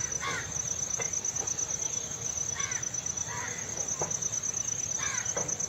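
Crickets trilling in a steady, high, fast-pulsing tone, with birds giving short calls about four times over it as they come in to roost at dusk.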